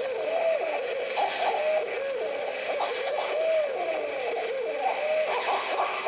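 Several animals calling at night, their calls overlapping and gliding up and down in pitch, one after another.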